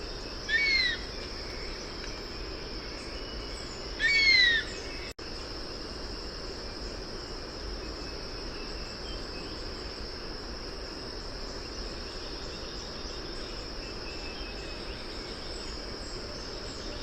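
A bird gives two short, loud whistled calls a few seconds apart, each arching up and then falling in pitch. They sound over a steady high-pitched drone of insects. After the second call only the insect drone and forest background go on, with a momentary gap about five seconds in.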